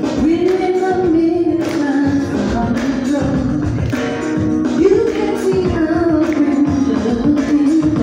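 Gospel vocal ensemble singing live with a lead vocalist, holding and sliding long sung notes over band accompaniment, with hand claps marking a steady beat.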